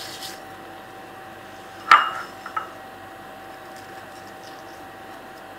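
Glass bowl clinking: one sharp clink with a short ring about two seconds in, then a smaller tap, over a faint steady hum.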